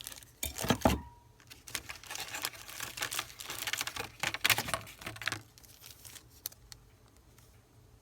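Packaging, such as plastic wrap or a bag, crinkling and rustling in irregular bursts as it is handled, with a few sharper crackles near the start; it thins to occasional ticks for the last couple of seconds.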